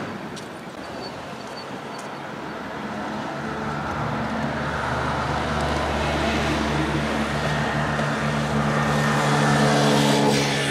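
A motor vehicle's engine running steadily, growing louder over several seconds and loudest near the end, as it comes closer.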